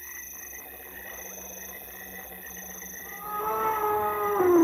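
Night bush ambience with insects trilling in on-and-off spells. From about three seconds in, a loud, drawn-out elephant call rises over it, its pitch dropping at the end.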